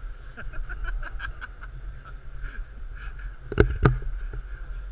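Large exhibition-hall ambience: a steady low hum with faint distant chatter and small ticks. Two sharp knocks come about three and a half seconds in, a third of a second apart, and they are the loudest sounds.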